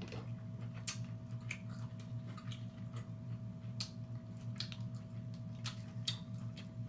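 Close-miked wet chewing and lip smacking of a person eating seafood, with irregular sharp clicks and smacks over a steady low background hum.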